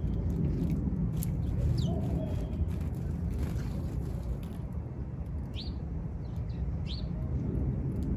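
Outdoor ambience: a steady low rumble with a few short, high chirps from small birds scattered through it.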